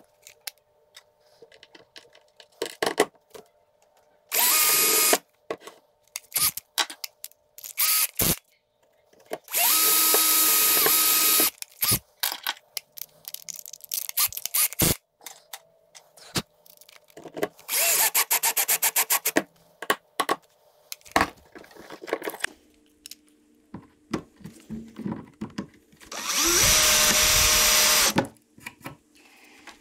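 Cordless drill running in four bursts of one to two seconds each, drilling and driving screws into a soft pine board. Between the bursts come scattered clicks and knocks.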